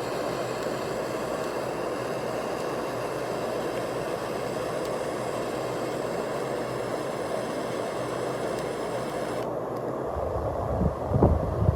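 Sondiko S907 refillable butane torch burning with a steady hiss; the hiss's high end cuts off suddenly about nine and a half seconds in, as the flame is shut off. A few low thuds follow near the end.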